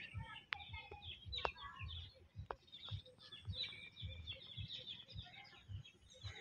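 Faint birds chirping and calling in the background, with a few sharp ticks about a second apart and low rumbling noise on the microphone.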